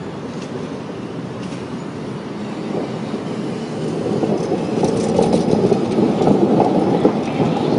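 Tram running along its rails and passing close by: its rumble grows louder over the first few seconds and is loudest as the car goes past, with a few light clicks.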